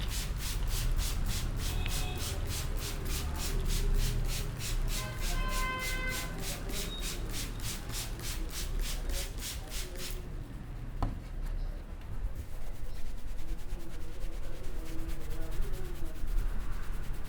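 Rapid rhythmic rubbing of hands on a person's hair and scalp during a head massage, about four or five strokes a second, turning to a softer, finer rubbing about ten seconds in.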